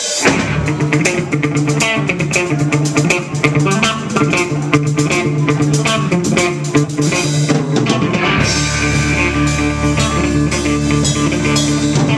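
Live rock band playing electric guitars, bass guitar and drum kit, coming in all at once. About eight seconds in, a held low bass note thickens the sound.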